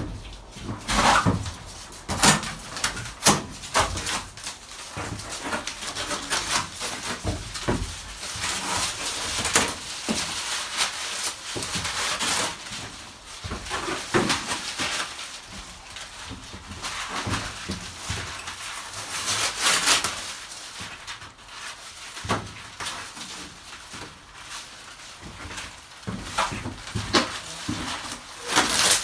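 Irregular knocks, clatter and short brushing scrapes of cleanup work inside an empty cargo van with a bare floor.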